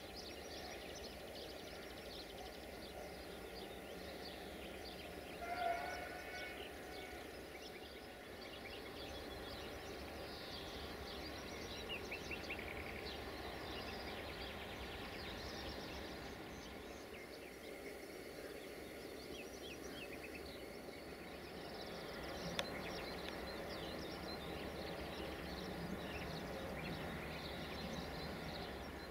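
Railway yard ambience: a low, steady rumble of train or locomotive noise under songbirds chirping. One brief tone with a few pitches sounds about six seconds in and is the loudest moment.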